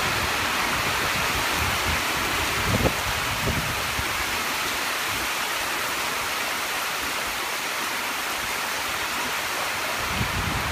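Heavy rain shower pouring down onto lake water and a dock, a dense, steady hiss. A few low buffets of wind on the microphone come about three seconds in and again near the end.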